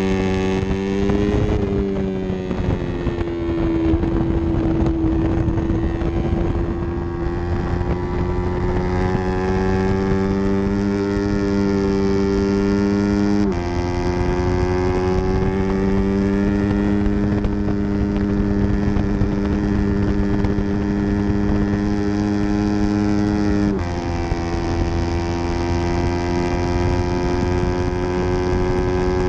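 Yamaha R3's 321 cc parallel-twin engine running hard. Its note sags for a few seconds early on, then climbs steadily as the bike accelerates. Two sudden drops in pitch, about halfway through and again some ten seconds later, mark upshifts.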